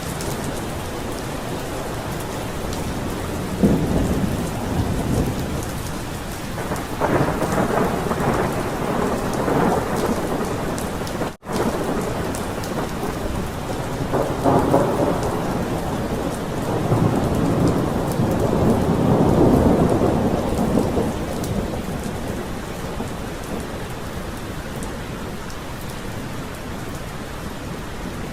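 Thunderstorm: steady rain with several rolls of thunder, one after another, the longest rumble about two-thirds of the way through. The sound drops out for an instant a little before the middle.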